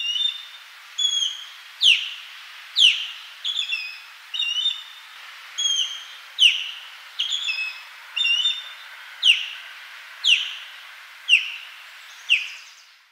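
Osprey giving a series of sharp, whistled calls, about one a second, over a steady background hiss. The calls alternate between downward-sweeping whistles and short, clipped double notes.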